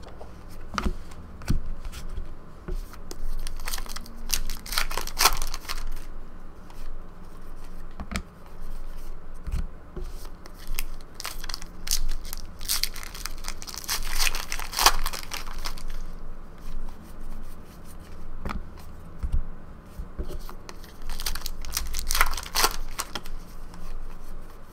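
Trading card packs being torn open and the cards handled: wrapper crinkling and tearing, and cards sliding and flicking against each other. It comes in a run of rustles, with three louder bouts about four, thirteen and twenty-two seconds in.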